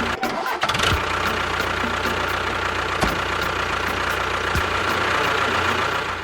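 A small motor running steadily, with a constant hum, a held whine and a faint regular ticking, and a couple of brief knocks.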